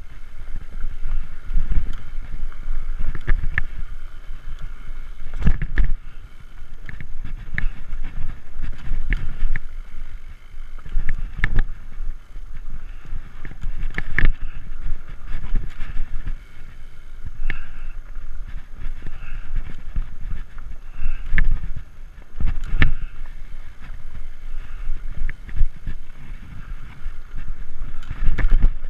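Framed Alaskan fat tire mountain bike rolling fast over a dirt singletrack trail: a steady low rumble of the tyres and wind buffeting the microphone, broken by frequent sharp knocks and rattles as the bike hits bumps.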